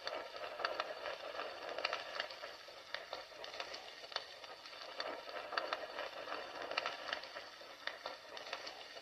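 Fire crackling, with irregular sharp pops and snaps over a steady low hiss.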